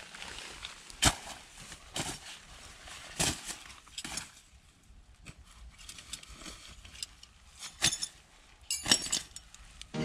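Half a dozen short, sharp knocks and clicks at irregular intervals, over faint background noise.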